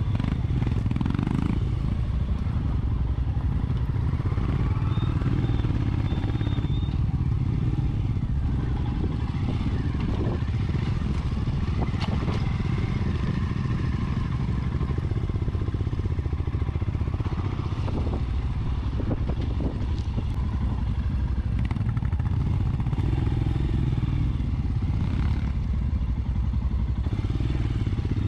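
Royal Enfield Scram 411's single-cylinder engine running steadily as the bike is ridden over rough grass and dirt, with a few sharp knocks and clatters from the bike over the bumps.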